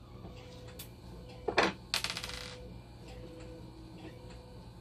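Small metal screws set down on a hard desk: a sharp click, then about two seconds in a screw drops and bounces with a quick ringing rattle before settling.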